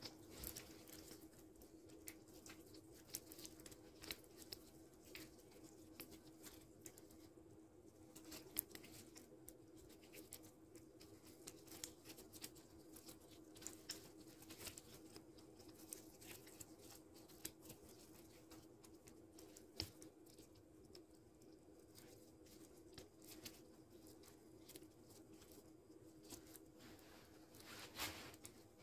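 Faint, scattered clicks and light rustling of hands wiring a lemon bonsai: bending wire and handling twigs and leaves. A small cluster of louder clicks comes near the end, over a faint steady hum.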